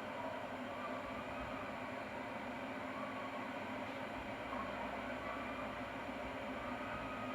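Electric kettle heating water, a steady hiss and rumble while the water is not yet at the boil.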